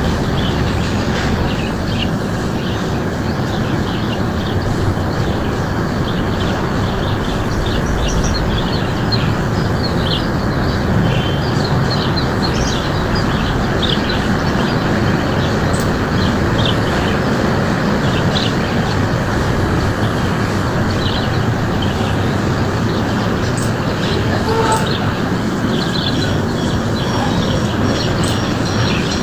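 Small birds chirping, many short calls scattered throughout, over a loud, steady rushing noise with no rhythm.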